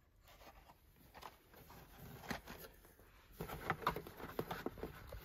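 Hot Wheels cars on blister-pack cards being handled and rummaged out of a cardboard box: irregular clicks, taps and rustles of plastic and card, getting busier and louder from about two seconds in.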